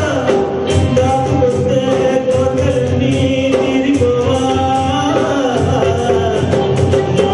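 A man singing a song through a microphone and PA over instrumental accompaniment with a steady beat, holding long notes.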